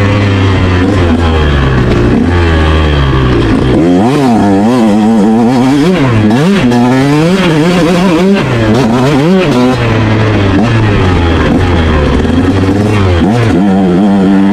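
Motorcycle engine revving up and down over and over, its pitch climbing and falling with the throttle and gear changes.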